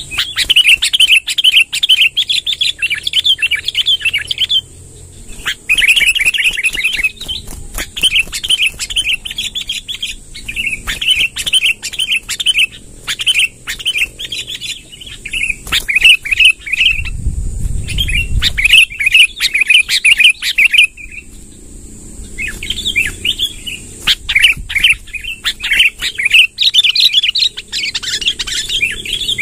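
Sooty-headed bulbuls singing vigorously in long runs of fast chattering phrases, one burst after another with short breaks, over a steady high-pitched whine. A low rumble comes about 17 seconds in.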